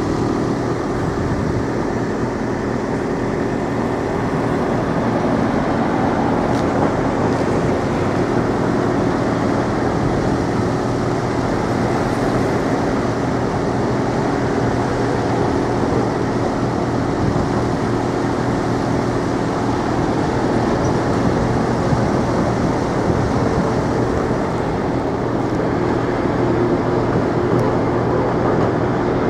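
Steady engine drone with a constant low hum, even and unbroken throughout.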